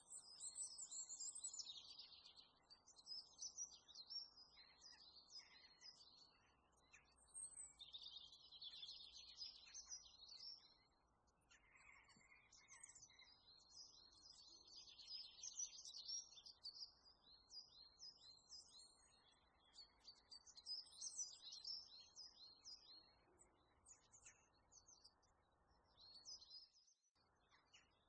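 Small birds chirping: quick runs of short, high notes, with a couple of brief pauses.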